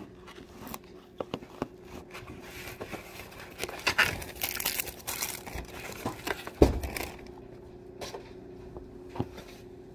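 Plastic grocery bag rustling and crinkling close to the phone's microphone, with scattered knocks and bumps as the phone is handled; the loudest knock comes about two-thirds of the way through. A faint steady hum sits underneath.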